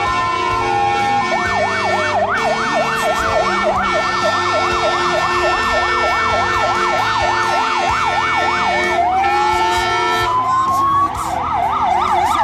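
Electronic sirens of fire-brigade road-rescue vehicles arriving, sounding a fast yelp of about three rises and falls a second. Around nine seconds in the siren switches to a slow rising wail, then goes back to the yelp near the end.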